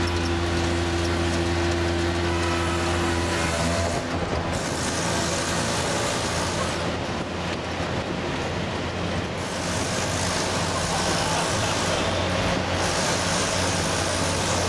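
Auto rickshaw's small engine running through its hole-riddled exhaust, a loud growl. A steady engine note for the first few seconds turns rougher and noisier about four seconds in, as the rickshaw drives into a road tunnel.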